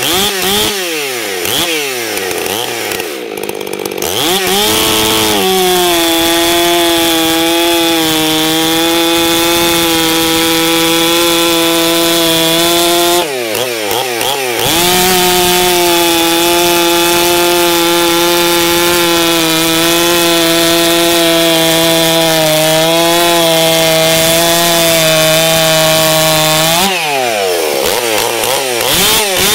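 Ported Stihl 661 two-stroke chainsaw with a 28-inch bar, full-comp chain and 10-pin rim, ripping through a big log. The engine holds a steady high pitch under load in two long cuts, and revs freely up and down between them: at the start, about 13 seconds in, and near the end.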